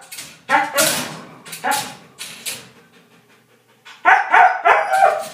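Siberian husky barking in short pitched calls: a few spread over the first two and a half seconds, a lull, then a quick run of about five calls starting about four seconds in.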